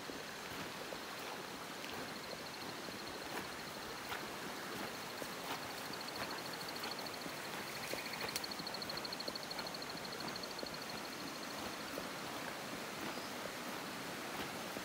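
Steady rush of running water after rain, with the faint scratch of boots on the track now and then. A thin, high, rapidly pulsing trill runs through most of it, strongest about halfway.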